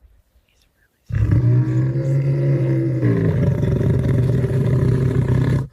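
Lion snoring: one long, loud snore beginning about a second in, held as a steady low drone and then breaking into a fast rattle about halfway through.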